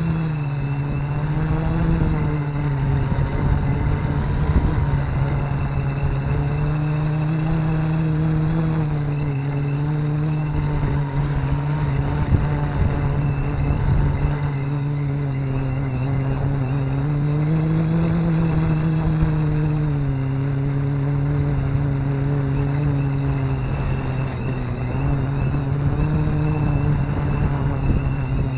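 Electric motors and propellers of a FliteTest ElectroHub multirotor drone in flight, heard from its onboard camera: a steady hum whose pitch drifts gently up and down, over a low rumble of wind on the microphone.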